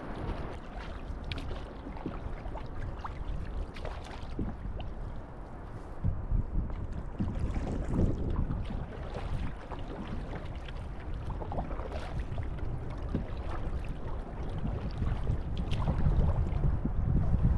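Canoe paddles dipping and pulling through calm sea water, with repeated small splashes and water lapping along the open canoe's hull, over steady wind rumble on the microphone.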